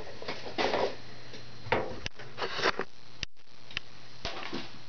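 Handling and room noise with no music: scattered small knocks, clicks and rustles over a steady low hum, with a brief dropout a little past halfway.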